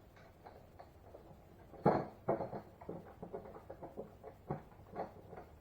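Irregular light knocks and clatter from objects being moved and handled, with one louder knock about two seconds in.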